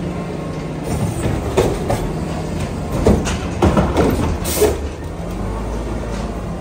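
Garbage truck's diesel engine running while its Curotto-Can automated arm dumps a plastic wheeled cart into the carry can, with a string of metallic clanks and knocks through the first four seconds or so; then the engine carries on steadily as the truck pulls forward.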